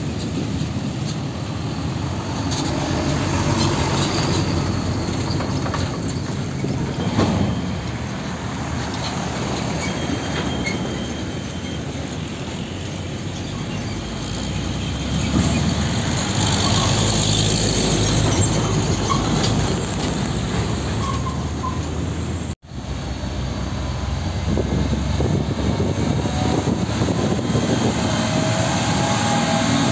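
Heavy diesel trucks running and pulling through at close range, with the rumble and tyre noise of passing traffic. The sound cuts out abruptly for a moment a little over two-thirds of the way in, then resumes.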